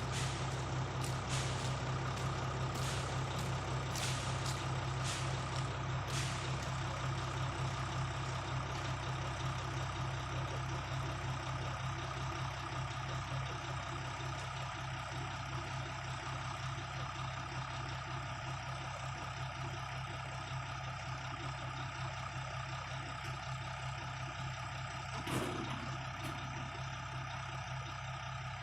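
Heavy diesel truck engine idling with a steady low hum and a faint steady whine. A run of short clicks in the first few seconds and a single knock about 25 seconds in.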